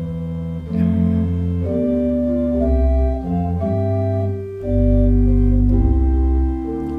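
Church organ playing slow, sustained chords over deep held bass notes, the chords changing every second or so.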